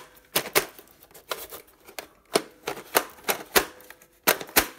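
Irregular sharp clicks and knocks of hard plastic parts on a Disney Store Millennium Falcon toy playset as its front section is pushed and snapped into place. The two loudest clicks come near the end.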